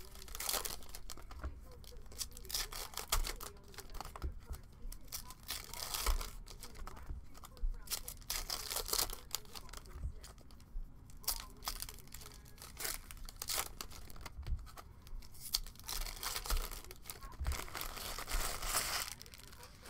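Foil trading-card packs (2021 Donruss Football hobby) being torn open and their wrappers crinkled, in irregular clusters of tearing and crackling, with a few dull knocks of handling.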